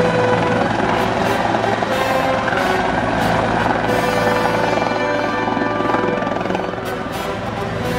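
CH-146 Griffon helicopter flying low past: steady rotor and turbine sound, with music playing over it.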